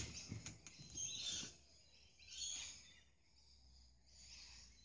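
Faint outdoor background noise, with a few soft noises in the first second and a half and one more between two and three seconds in, then near silence.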